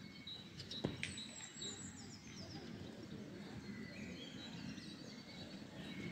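Songbirds chirping and calling over low, steady outdoor background noise, with a couple of sharp clicks about a second in.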